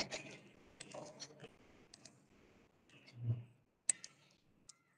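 Faint scattered clicks and light taps, with a soft low thump about three seconds in and two sharper clicks near the end.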